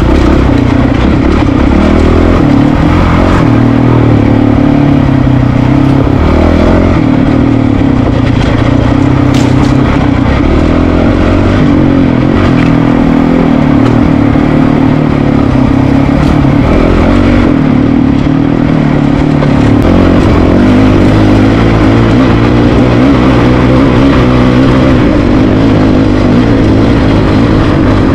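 Honda CRF450RL's 450 cc single-cylinder four-stroke engine pulling the bike over rocky single track, its pitch rising and falling with the throttle.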